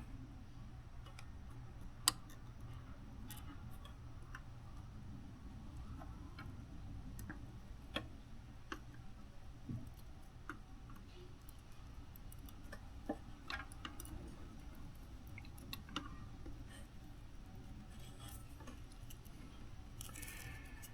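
Faint handling of a garage door opener's circuit board and small tools on a workbench: scattered, irregular light clicks and taps over a low steady hum.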